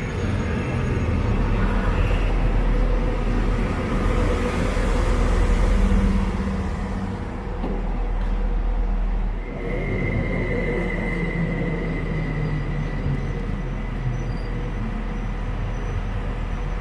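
A train running by on the track with a steady rumble, loudest about five seconds in. A thin high whine comes in about ten seconds in and fades over a few seconds.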